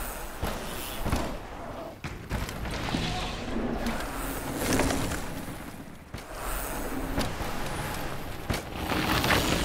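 Mountain bikes riding fast down a loose gravel trail: tyre noise over the dirt and wind rush, with a few short thuds.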